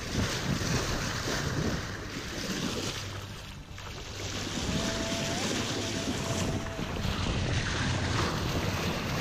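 Water rushing and splashing along a sailboat's hull as the boat sails under way, with wind buffeting the microphone. It eases off briefly a few seconds in.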